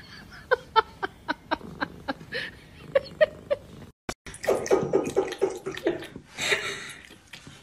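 A quick run of sharp clicks, about four a second, through the first half. After a brief cut, water runs from a bathroom faucet into a sink.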